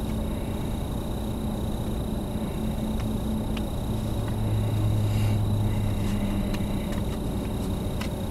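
Dodge Charger idling, heard from inside the cabin: a steady low rumble with a faint hum. A deeper hum swells for a second or two about halfway, and there are a few faint clicks.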